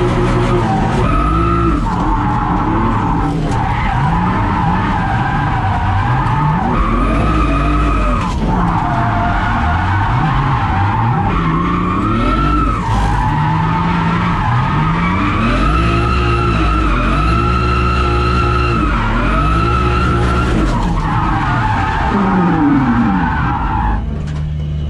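Inside the cabin of a 700 hp Toyota Supra drift car: the engine revs rise and fall over and over while the tyres squeal steadily through long slides. Near the end the squeal stops and the engine drops back.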